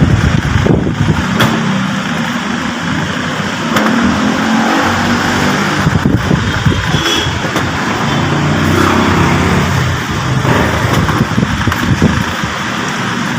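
Motor vehicle engines running and passing close by, rising and falling in level, with a few sharp clicks now and then.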